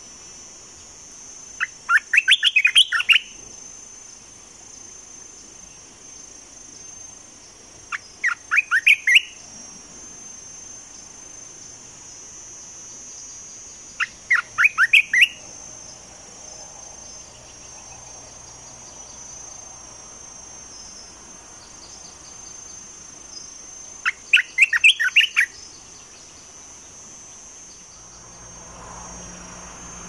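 Bulbul calling in four short bursts of quick repeated chattering notes, each about a second long and several seconds apart, over a steady high insect drone.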